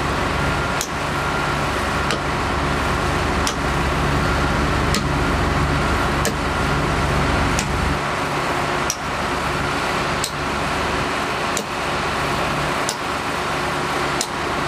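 Sharp hammer blows at a steady pace of about one every 1.3 seconds, over the continuous drone of a piling rig's engine.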